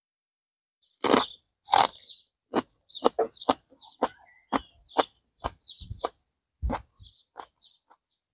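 Two loud crunches of teeth biting into a raw green onion stalk about a second in, then crisp chewing crunches, two or three a second, close to the microphone.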